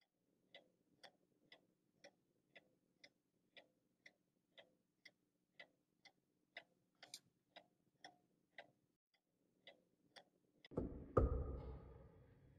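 A watch ticking faintly, about twice a second, then a few loud knocks of knuckles on a wooden door near the end, ringing briefly.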